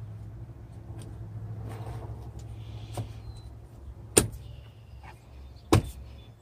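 Three sharp knocks of metal on metal as a truck windshield wiper arm is worked onto its pivot, a light one about three seconds in and two loud ones near the end, over a low steady hum that fades out about halfway through.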